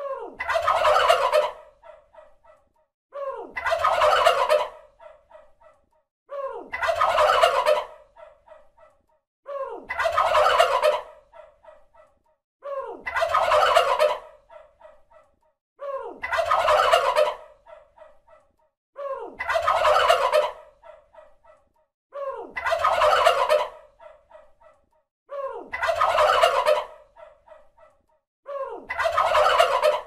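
A male turkey gobbling about ten times at a steady interval of roughly three seconds. Each gobble is a loud, rapid rattling call of just over a second, trailing off in a few quick, fainter notes.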